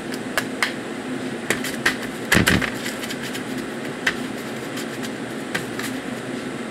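Hands patting a small piece of concha sugar-paste topping flat and pressing it onto a dough ball on a metal sheet pan: scattered soft slaps and taps, the loudest a knock about two and a half seconds in. A steady machine hum runs underneath.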